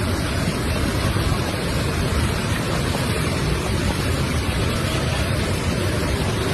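Steady loud rushing noise of heavy rain pouring down.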